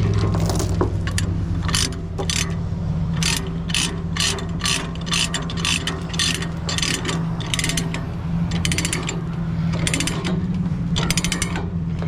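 Ratchet chain binder being cranked to tighten a tie-down chain, its pawl clicking about twice a second in runs with short pauses. A steady low drone runs underneath.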